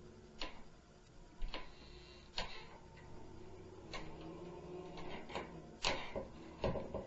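Irregular sharp knocks and bangs from the upstairs neighbours' apartment, about seven in all, coming closer together near the end.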